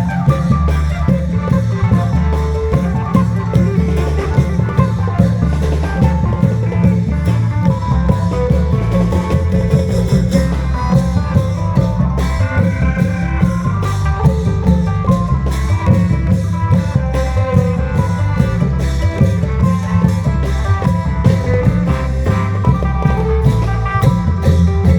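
Isan klong yao long-drum band playing: steady rhythmic drumming with a melody line over heavy bass.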